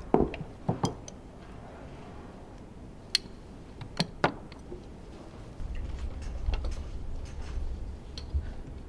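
Sharp metallic clicks and knocks as Honda RA100E V10 pistons and connecting rods are handled during teardown, one piston being set into a plastic parts tray. A low rumble with faint ticks follows from about halfway.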